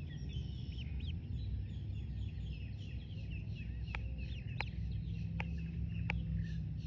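A duckling peeping over and over in quick, short, high chirps, several a second, with a few louder, sharper peeps in the second half.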